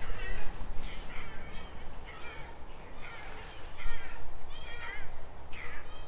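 Crows cawing, a run of short harsh calls about one or two a second, some overlapping.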